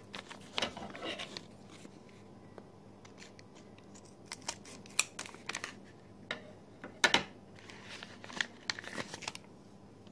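Scissors snipping open a clear plastic package, with the plastic crinkling and rustling as it is handled and the blue USB LED light is pulled out. The sounds come in several bursts of crackles and sharp clicks, the loudest click about seven seconds in.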